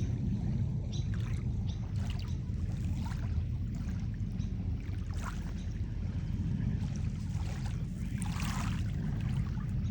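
Wind buffeting the microphone outdoors at the beach, a steady low rumble, with a few faint short sounds above it.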